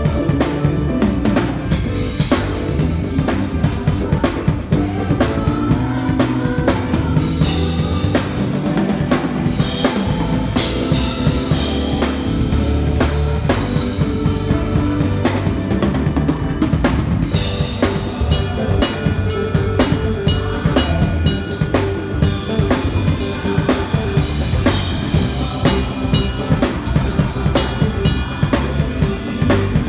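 Odery Fluence drum kit played steadily in a full groove: kick drum, a metal-shell snare, toms, hi-hat and Orion cymbals, with other pitched music sounding underneath.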